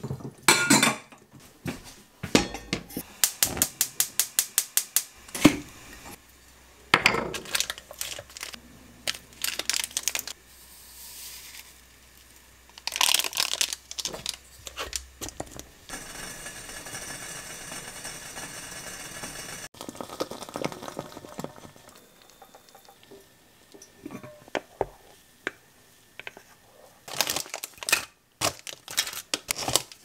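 Kitchenware being handled: dishes and utensils clinking and knocking, with a quick even run of about a dozen light taps a few seconds in and a steady hiss through the middle.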